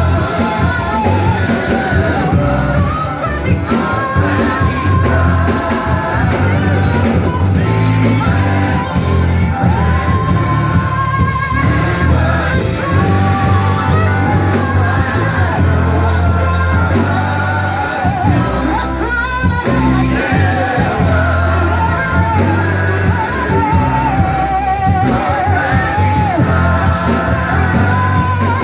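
Live worship music: singing voices with vibrato over a band with a strong, steady bass line.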